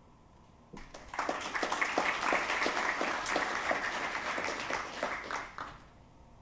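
Audience applauding: many people clapping together, starting a little under a second in and dying away about a second before the end.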